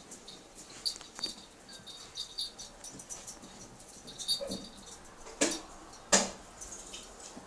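A dog shifting about on a towel on carpeted stairs: soft scuffs and small clicks, with two sharper knocks about five and a half and six seconds in.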